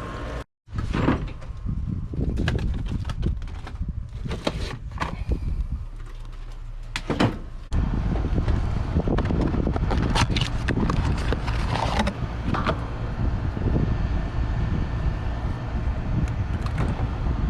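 Clicks, knocks and scrapes of tools and metal parts handled at an air conditioner condenser, over a steady low rumble.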